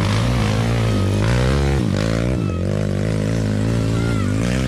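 Dirt bike engine revving unevenly on a rough trail, its pitch rising and dropping again and again as the throttle is worked.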